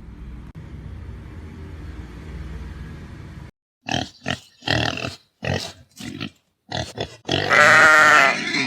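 A low steady hum, then after an abrupt cut a pig grunting in about seven short bursts, followed near the end by a long, loud squeal.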